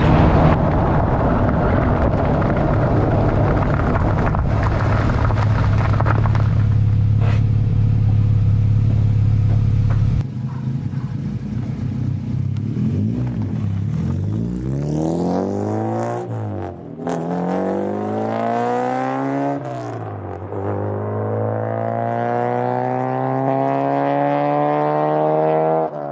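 Honda Civic driving at a steady speed, its engine drone and road noise heard close to the front wheel. About ten seconds in this gives way to the car pulling away hard, the engine note rising in pitch through the gears, with two upshifts.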